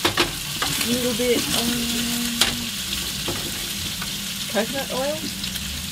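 Crayfish pieces sizzling in butter in a frying pan, a steady high hiss. A few sharp clicks come from the tongs knocking against the pan as the pieces are turned.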